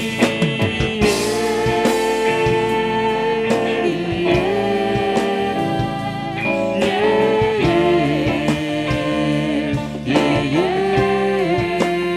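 Live band music: a drum kit keeps time under two women's voices holding long sung notes together, with no words picked out.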